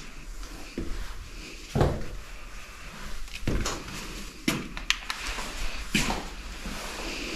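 Footsteps on a hard floor strewn with plaster debris: several dull thumps and sharper clicks at irregular intervals.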